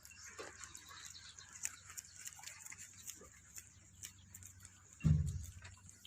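Goats moving about in a pen, with scattered small clicks and rustling. A loud low thump comes about five seconds in.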